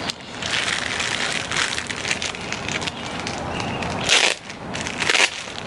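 Clear plastic bag around a packed tent crinkling and rustling as it is handled and pulled at, with louder crackles about four seconds in and again about a second later.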